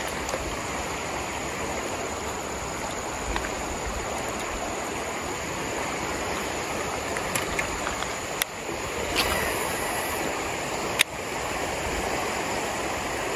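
Fast-flowing river water rushing steadily, with a couple of sharp clicks in the second half.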